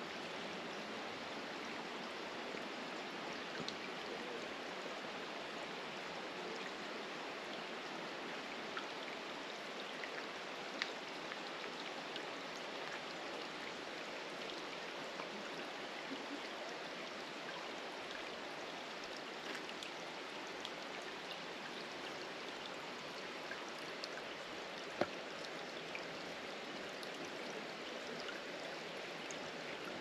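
Shallow rocky brook trickling over stones: a steady, even rush of running water with scattered small drips and ticks, and one sharp click late on.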